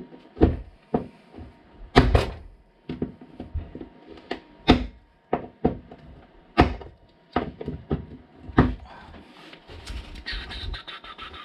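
Irregular sharp clicks and knocks of pliers working at model railway track, pulling track pins and prising the track up. There is a brief scrape near the end.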